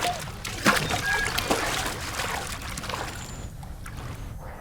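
Water splashing and trickling, a dense run of small splashes that thins out as the sound fades.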